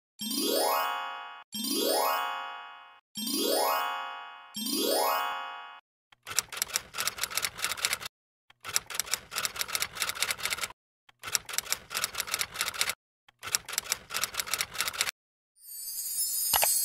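Cartoon intro sound effects: four rising chime-like glides in a row, each fading out, then four runs of rapid clicking with short breaks between them, and a bright sparkling shimmer starting near the end.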